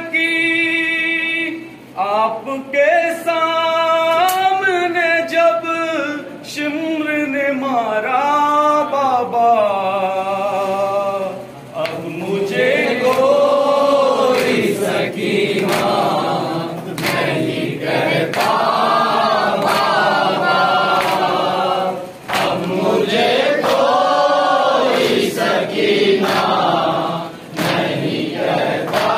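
A man sings an Urdu noha, a mourning lament, alone for about twelve seconds. Then a group of men joins in, chanting the refrain in chorus. Sharp slaps of chest-beating (matam) come every second or two.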